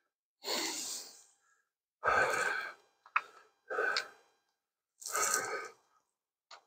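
A man's heavy breathing close to the microphone: four loud breaths about a second and a half apart, with a short click about three seconds in.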